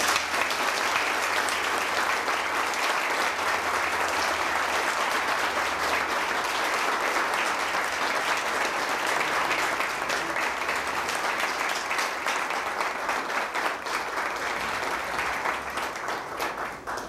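Audience applauding steadily, with many hands clapping, tapering off near the end.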